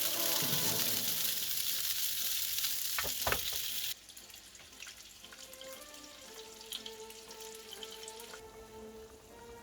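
Food sizzling and frying in a hot pan over light background music. The sizzle cuts off suddenly about four seconds in, leaving a quieter stretch of faint crackles under the music.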